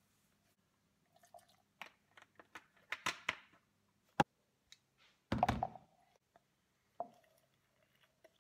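Plastic bottles and a plastic cup handled on a kitchen bench while a drink is being mixed: scattered clicks and knocks of caps and containers, a sharp click about four seconds in, and the loudest part, a clattering thump, a little after five seconds.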